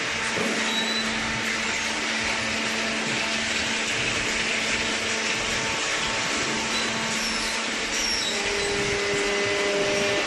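Hydraulic baler's electric motor and pump running with a steady hum and whine. A higher tone joins about eight seconds in.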